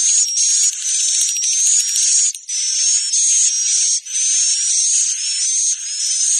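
Swiftlet roosting-lure sound (suara inap walet), played to draw swiftlets into a swiftlet house to roost. It is high-pitched, buzzy twittering with short chirps, in bursts about a second long broken by brief dips.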